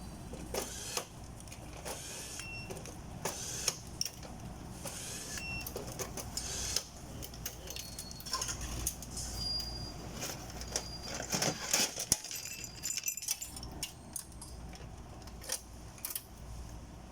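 Small metal parts clinking and clattering in irregular handling, many sharp clicks with brief high ringing, over a steady low machine hum.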